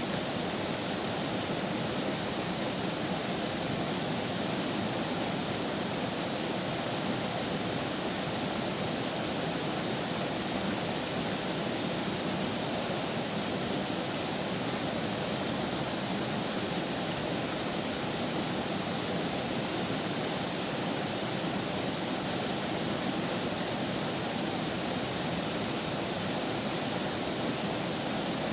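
River water flowing steadily, a continuous even rush with no breaks.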